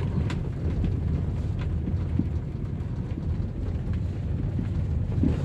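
Car driving over a rough, gravelly road under repair, heard from inside the cabin: a steady low rumble with a few light knocks.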